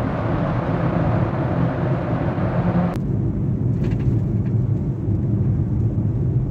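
Road and engine noise inside a moving car's cabin: a steady low rumble with hiss. About three seconds in, the sound changes abruptly, losing most of its hiss and leaving the low rumble.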